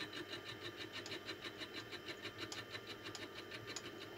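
Milling machine taking a light cut across the cast iron port face of a model steam engine cylinder with an end mill at about 250 rpm. The motor hums steadily under a rhythmic ticking from the cut, about five ticks a second.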